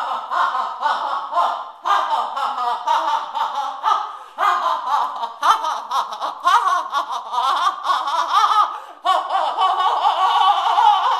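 A person's wordless voice in quick, broken bursts, with short pauses about two, four and a half, and nine seconds in.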